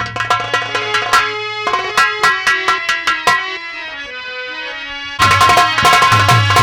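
Folk band music: a harmonium playing a melody over sharp drum strokes; the drumming drops out for a moment while the harmonium steps down through held notes, then comes back louder and faster about five seconds in.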